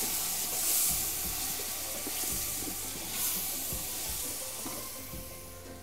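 Onion, garlic, tomato paste and spices frying with a steady sizzle in a large aluminium pot, stirred with a wooden spoon that scrapes and knocks against the pot. The sizzle dies down near the end.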